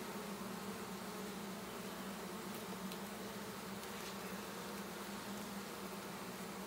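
A swarm of honey bees buzzing: a steady, unbroken hum of many wings.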